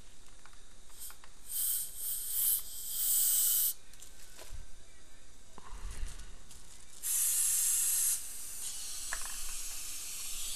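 Hissing bursts of air from a dental air syringe: a few short puffs in the first few seconds, then one longer blast about seven seconds in.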